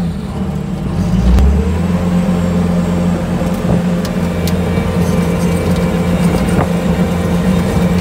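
Bobcat skid steer's engine running, heard from inside the cab as the machine drives with its auger attachment raised; it revs up about a second in, then holds a steady hum.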